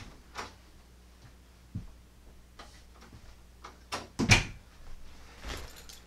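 Someone rummaging in storage to fetch a padlock: a few light knocks, then a louder sharp clatter about four seconds in, like a door or drawer being worked.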